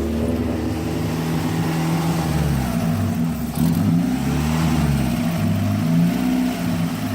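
Mazda Miata's four-cylinder engine running under throttle, its revs swinging up and down several times.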